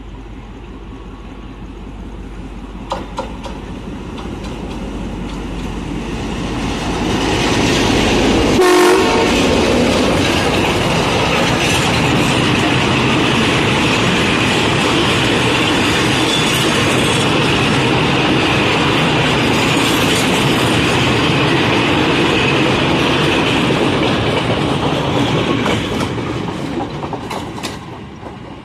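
EMD class M2D diesel-electric locomotive approaching with its engine running, growing louder until it passes close about nine seconds in, its pitch dropping as it goes by. A long string of freight wagons follows, rumbling and clattering over the rail joints. The sound fades near the end as the brake van goes past.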